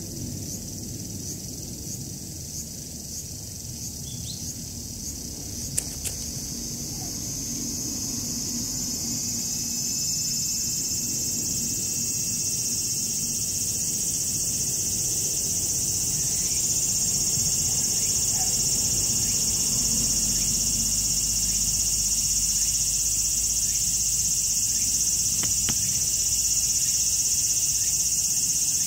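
A chorus of insects shrilling outdoors, a steady high-pitched drone that grows louder through the first half and then holds steady.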